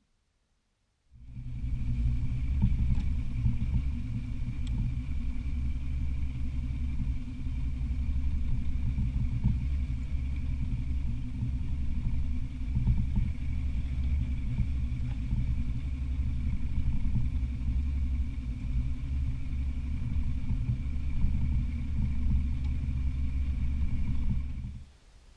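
Boat motor running steadily: a low rumble with a thin, steady high whine over it. It cuts in suddenly about a second in and cuts out just before the end.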